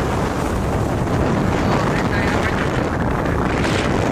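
Rough winter surf breaking and foaming over shoreline rocks in a steady wash, with strong wind buffeting the microphone.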